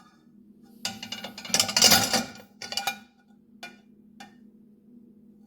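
Dishes clinking and knocking together as they are handled, a cluster of ringing knocks about a second in and a few lighter ones after, over a steady low hum.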